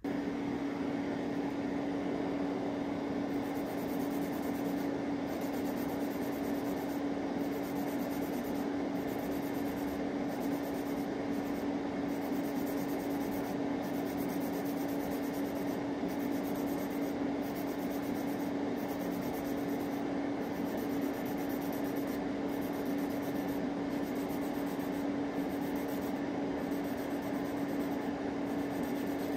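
Electric nail drill (e-file) running at a steady speed with a constant hum, its bit filing down cured gel on the nails.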